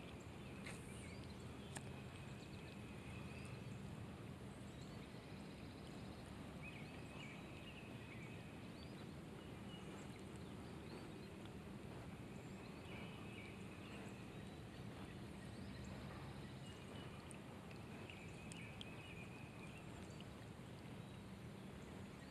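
Faint outdoor ambience of light rain falling on a pond, with short high chirping calls every few seconds.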